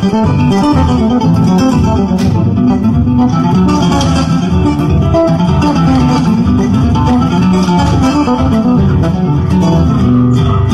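Instrumental gato, a Latin American folk tune, played on plucked guitar-like string instruments with a Herle electric bass fingered along underneath.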